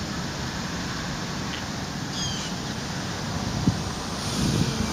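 Wind buffeting the microphone, with a few faint high chirps about two seconds in.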